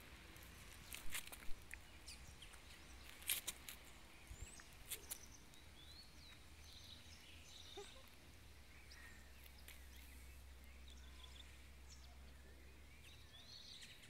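Puppies playing on grass and gravel, faint: a few sharp clicks and scuffs in the first five seconds, then mostly quiet, with brief high chirps now and then.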